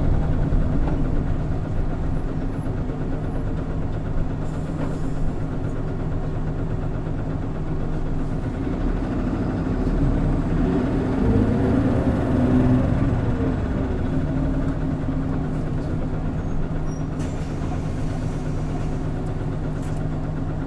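Hino Blue Ribbon City Hybrid city bus under way, heard inside the passenger cabin: its diesel-hybrid drivetrain running steadily, with a tone that rises and then falls about halfway through.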